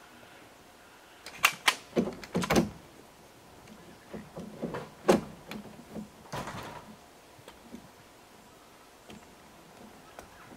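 Rooftop tent and ladder gear being handled: a quick run of sharp clacks and knocks, another loud clack about five seconds in, then a short spell of rustling.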